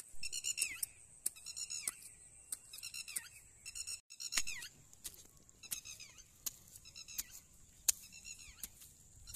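Short, high-pitched animal calls repeating about once a second, each dropping slightly in pitch. Between them come sharp ticks from a hand tool digging into wet, grassy soil.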